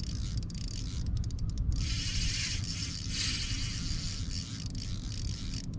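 Spinning reel ratcheting in short spells, about two and three seconds in, as a large carp is fought on 8-pound line, with a steady low rumble underneath.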